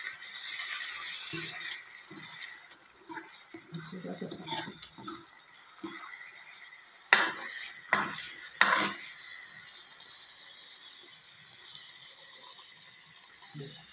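A ladle stirring chicken curry in a metal kadai, scraping around the pan over the steady hiss of the cooking gravy, with three sharp knocks of the ladle against the pan a little past halfway.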